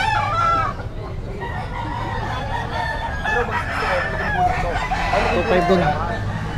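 Many roosters crowing over one another, mixed with clucking.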